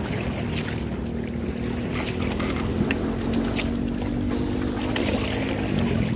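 Steady low drone of a boat engine running, with wind on the microphone and a few sharp clicks scattered through.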